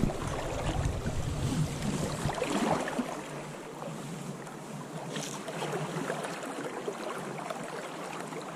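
Steady rush of a fast river current, with wind buffeting the microphone during the first few seconds.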